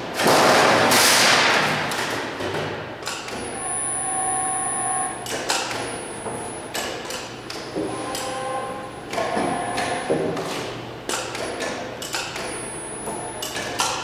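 A thin 24-gauge sheet-metal wall panel being handled. It starts with a loud wobbling rush as the sheet flexes, then gives repeated knocks and clanks with a metallic ring as it is laid and slid into place on the folding machine's bed.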